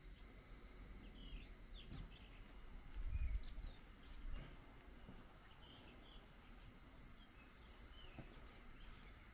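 Outdoor ambience of insects trilling steadily and high, with small birds giving short chirps through the middle, and a brief low rumble, like a gust or handling on the microphone, about three seconds in.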